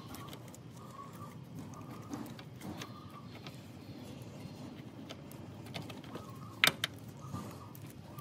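Scattered metal clicks from hand work on a scooter's rear brake caliper and its pins, the loudest a single sharp clack about three-quarters of the way through. A faint bird call repeats about once a second underneath.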